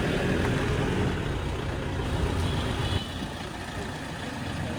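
Toyota Innova running, a steady low engine and road rumble that drops quieter about three seconds in.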